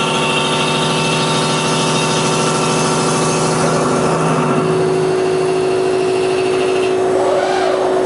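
Unisign Uniport CNC machining centre running while its spindle tool feeds into a railway bogie frame. A steady mechanical hum with a held whine shifts in tone partway through, and a wavering tone comes in near the end.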